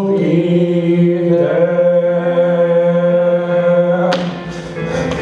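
Two male voices in a stage duet holding a long final sung note together, one low and one higher, steady in pitch. The held note stops about four seconds in and a sudden burst of noise follows.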